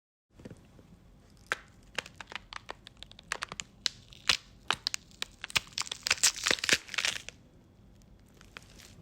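Foley crackling: irregular sharp snaps and crinkles that start sparse, crowd together and grow loudest toward the middle, then thin out to a few faint crackles near the end.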